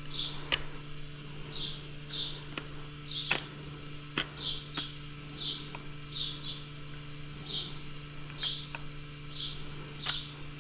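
A small bird chirping over and over, short falling chirps about once a second, over a steady low hum, with a few sharp clicks in between.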